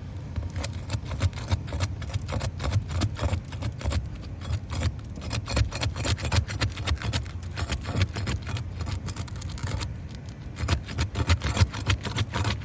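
Asphalt roof shingles being unsealed: rapid, irregular crackling and tearing as the sealant strips are pried loose, with a short lull about ten seconds in. A low steady rumble runs underneath.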